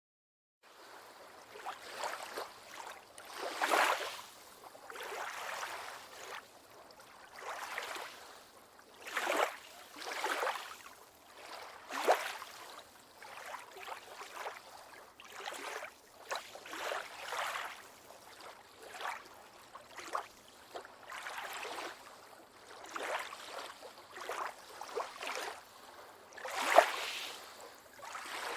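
Small waves lapping and washing onto a beach in irregular splashes every second or two, with a few sharper slaps.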